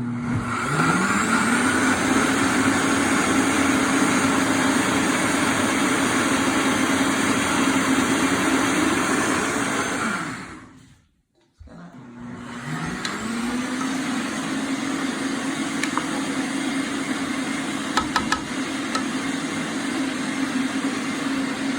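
Electric blender grinding a wet green masala with cumin and coriander seeds. The motor spins up with a rising whine, runs steadily for about ten seconds, then winds down. After a second's pause it spins up and runs again, with a few light clicks. This is a last run to grind the remaining seeds completely fine.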